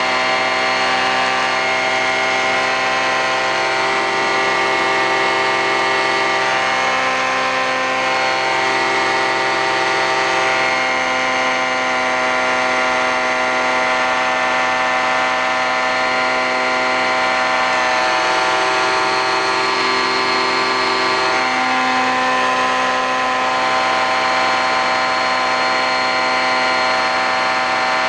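Titan Tornado II ultralight's engine and propeller droning steadily in flight at constant power, with a few lower tones shifting slightly now and then.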